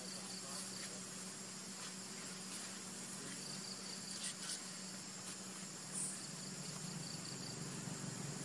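Insects chirring steadily in high tones, one pulsing line of song over a continuous one, with a low steady hum beneath and a couple of faint clicks about four and six seconds in.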